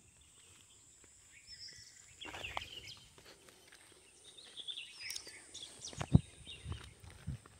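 Footsteps through dry grass and brush, the dry stalks crackling and rustling underfoot, with a few heavier footfalls thudding near the end.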